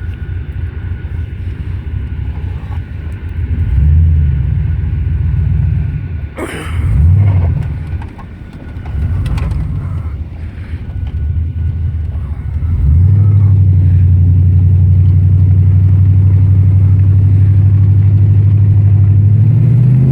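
Cammed 6.0-litre LS V8 running, revved up briefly twice, then held at a steady raised speed for the last several seconds. It carries a knock that the owner takes for rod knock, with cylinder 4 at under half the compression of the others.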